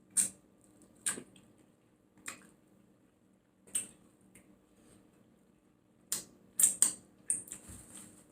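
Close-miked chewing: a series of sharp, wet mouth clicks and smacks at irregular intervals, several in quick succession near the end.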